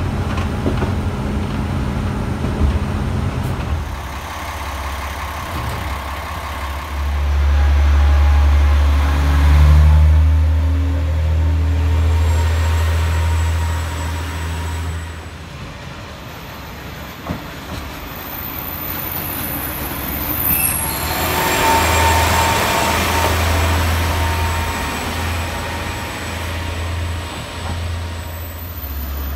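Red Japanese diesel railcar running on the line: a deep steady engine rumble whose pitch shifts as the train moves, with a louder stretch of wheel-on-rail noise about two-thirds of the way through.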